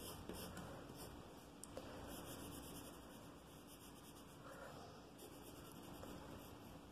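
Faint scratch of a soft B graphite pencil on paper: a run of short, quick hatching strokes, pressed hard to shade a dark shadow area.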